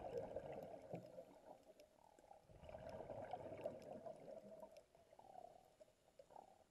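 Faint, muffled underwater gurgling and bubbling heard through a submerged camera, with scattered small clicks; it dies down over the second half.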